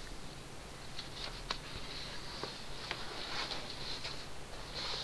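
Faint crackling rustles and a few light clicks over a low steady hum, from the plastic-film-covered diamond-painting canvas being handled and lifted.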